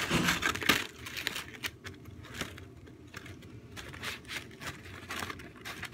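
Scattered clicks, rustles and scrapes of things being handled close to the microphone, loudest in the first second.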